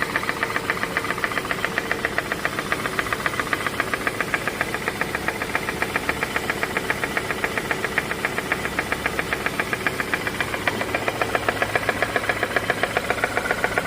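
Ford Ka engine running with a rapid, even metallic knocking, which the owner puts down to a knocking balance shaft.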